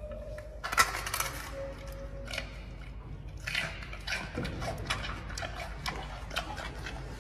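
Giant panda biting into and chewing a fresh bamboo shoot: irregular crisp crunching and cracking, loudest about a second in.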